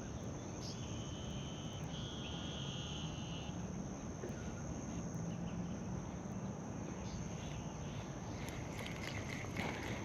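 Steady, high-pitched insect chorus of crickets, with a short buzzy call about a second in.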